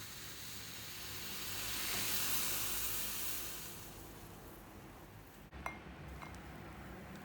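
A rushing hiss swells and fades over about three seconds. After an abrupt cut, a sharp light clink rings briefly, followed by a fainter one.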